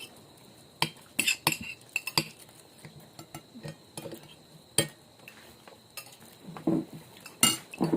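Spoon and fork clinking and scraping against a plate while eating, a dozen or so irregular, sharp taps.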